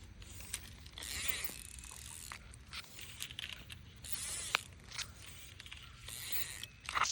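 Fishing reel being cranked in short bursts, a whirring, ratcheting mechanism sound with sharp clicks in between, as the lure is retrieved.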